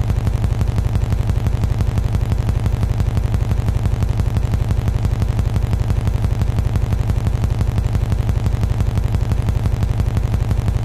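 Helicopter rotor blades chopping in a fast, steady beat over a heavy low rumble.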